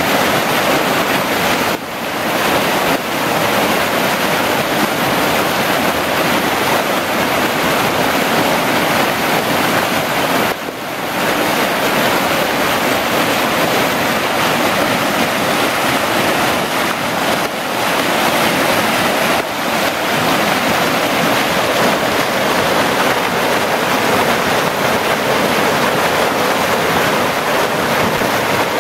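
Creek water rushing over a rock ledge in a small rapid: a loud, steady whitewater rush.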